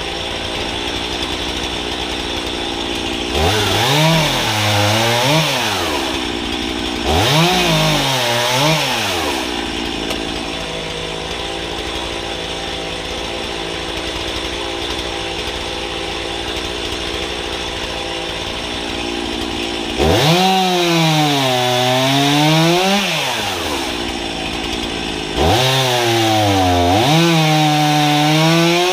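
Chainsaw mounted on a homemade pivoting guillotine frame, idling between cuts and revving up four times to buck logs into firewood rounds: two cuts close together, a long idle, then two more. On each cut the engine pitch climbs, dips in the middle as the chain works through the wood, rises again and drops back to idle.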